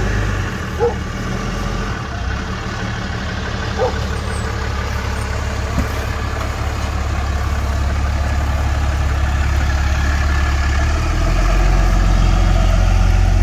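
An engine running steadily at idle, its note dropping lower about eleven seconds in.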